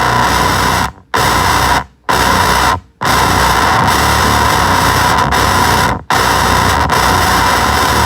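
Octave fuzz pedal putting out a loud, dense wall of noisy fuzz that cuts out abruptly four times, about one, two, three and six seconds in.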